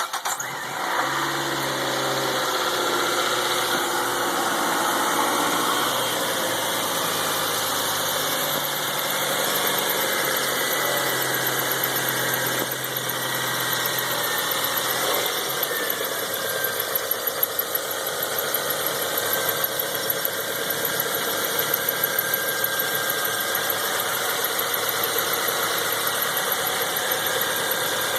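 Mazda 626 engine idling just after a start, with a steady whirring whine from the engine bay whose source is still being sought. Within the first couple of seconds the idle drops and settles.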